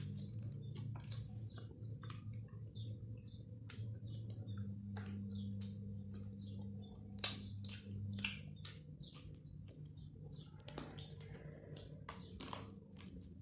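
Close-up mukbang eating sounds: chewing with many small wet mouth clicks and smacks, one sharper click about seven seconds in, over a steady low hum.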